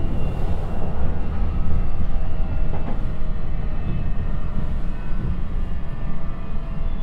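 Cabin running sound of a JR East E129 series EMU slowing from about 60 km/h on long-welded rail that has been freshly ground: a steady low rumble of wheels on rail, with a band of steady humming tones from the ground rail surface (rail-grinding sound).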